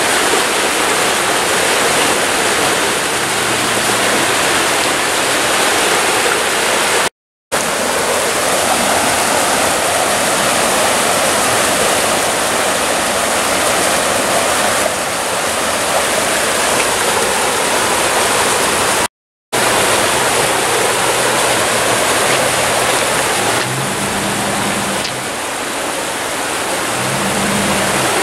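Fast-moving floodwater rushing across a road and over its guardrails, a loud steady rush of water. It cuts out twice, briefly.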